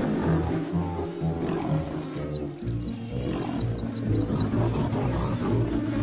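A lion roaring over background music with a low, shifting bass line.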